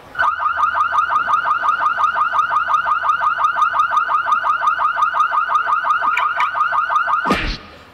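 A loud, fast warbling alarm-like chirp, like a car alarm, about seven pulses a second, running for about seven seconds, then ending in a sharp falling swoop with a low thump near the end.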